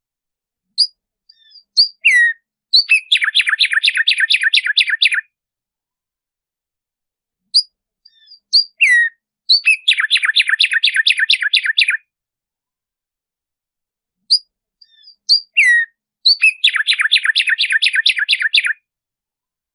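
Black-striped sparrow (tumba yegua) singing three songs, about seven seconds apart. Each song opens with a few separate high notes and then breaks into a fast, even run of repeated notes lasting about two seconds.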